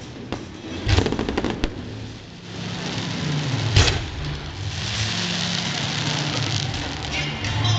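Fireworks: a few crackling bursts at first, then a single sharp bang near the middle. After that comes a steady hissing rush as a volley of comets climbs.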